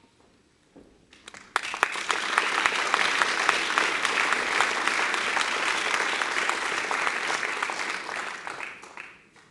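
Audience applauding: a few scattered claps about a second in, then full, dense applause that fades away near the end.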